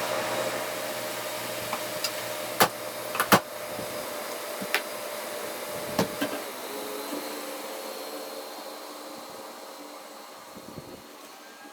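Steady rushing of a pickup truck's air conditioning blower with a faint hum underneath, broken by several sharp clicks and knocks in the first half; the noise slowly fades.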